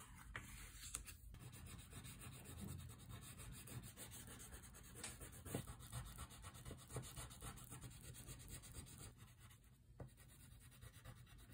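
Faint scratchy rubbing of a thick pastel crayon scribbled in quick back-and-forth strokes across a small paper card, with a few light knocks scattered through.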